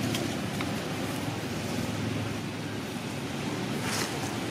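Steady outdoor background noise, a low rumble with a brief hiss near the end.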